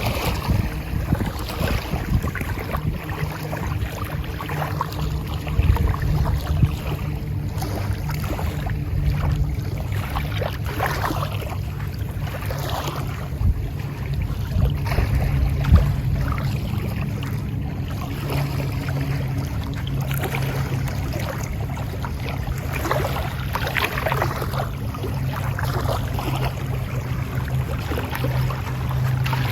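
Waves washing onto a beach, with wind rumbling on the microphone throughout.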